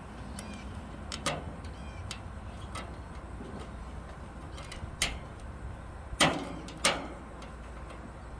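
Four sharp knocks or clicks at uneven spacing, the loudest pair close together near the end, over a low steady hum.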